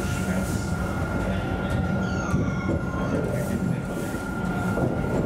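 Alstom Citadis tram running along the track, heard from the driver's cab: a steady rumble of wheels and running gear under a constant high tone, with a brief falling squeal about two seconds in.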